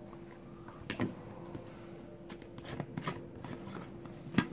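Plastic shaker bottle lids being handled, giving a few light plastic clicks and knocks, about a second in, around three seconds and a sharper one near the end, over a faint steady hum.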